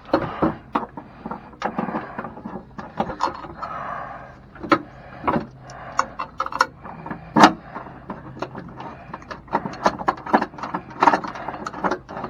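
Irregular clatter of metal hardware being handled and fitted: many sharp clicks and knocks with scraping between them, one louder knock about seven seconds in, over a faint steady hum.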